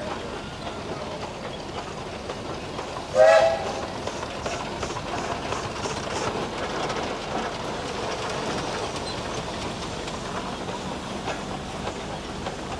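Minneapolis steam traction engine passing at work, its steam whistle giving one short, loud toot about three seconds in. A brief run of evenly spaced exhaust chuffs follows, over the steady running noise of the engine.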